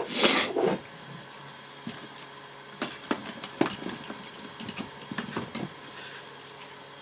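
Handling of small tool parts and wiring on a workbench: a short rustling burst at the start, then scattered light clicks and taps.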